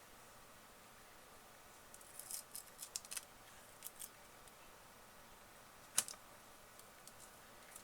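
Faint, scattered clicks and light scrapes of small tools and plastic tablet parts being handled, with a cluster of them about two to three seconds in and one sharp click about six seconds in.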